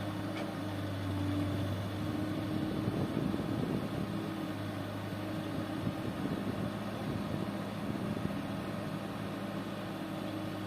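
Diesel engine of a heavy machine running steadily at an even, low hum.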